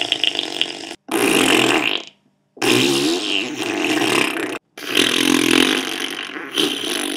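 A run of long fart sounds, one after another, each cut off sharply, with a half-second of silence about two seconds in.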